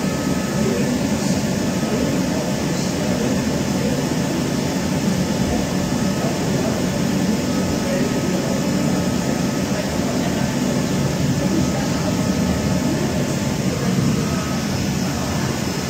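Steady hum and rushing noise of a Studer S41 CNC cylindrical grinder running under power, even in level, with no distinct knocks or grinding contacts.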